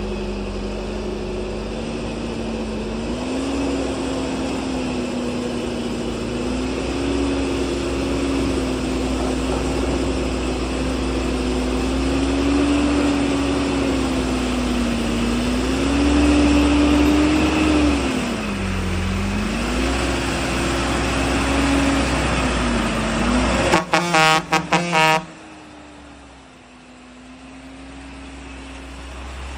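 Dump truck running under way, its engine note rising and falling with engine speed over steady road noise. About 24 seconds in comes a short burst of rapidly pulsing horn blasts, after which it goes quieter with a faint steady tone.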